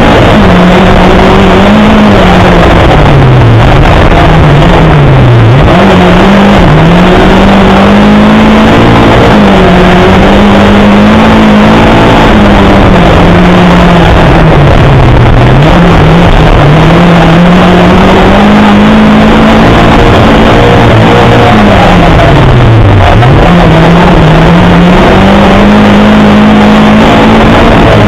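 Lada 2107 rally car's engine heard from inside the cabin at full stage pace, very loud, its revs climbing and falling again and again with several sharp drops, over a constant rush of road noise.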